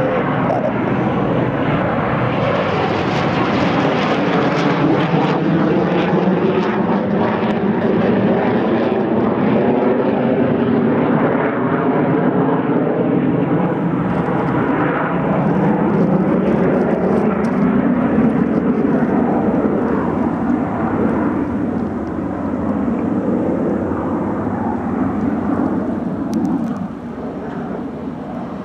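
Eurofighter Typhoon's twin EJ200 turbofan jet engines running loud and steady as it flies low on approach with its landing gear down, the sound wavering with slowly sweeping shifts in tone. The level drops a little near the end.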